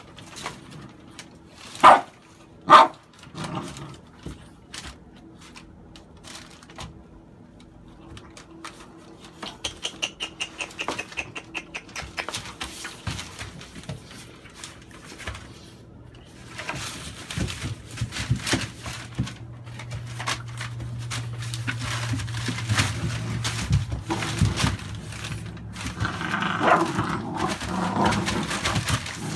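American bully puppies play-fighting on a newspaper-covered floor: two sharp barks about two seconds in, newspaper crinkling under their paws throughout, a long low growl in the second half, and yips near the end.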